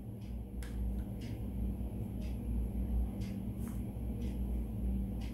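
A steady low background hum with a few faint, light clicks, spaced about a second apart, of a metal spoon against a plastic mixing bowl as ginger-garlic paste is scooped into it.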